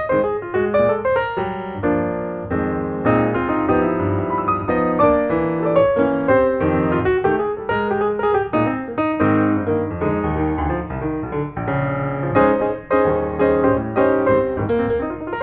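Background piano music, a steady flow of notes with no other sound standing out.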